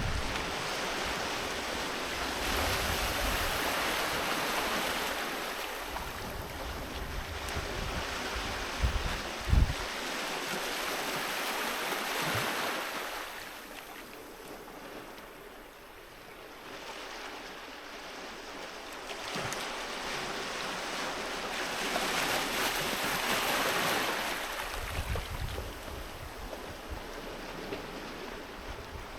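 Sea waves breaking and washing up a beach, swelling and fading about every ten seconds. Wind buffets the microphone with brief low thumps, the sharpest about nine and a half seconds in.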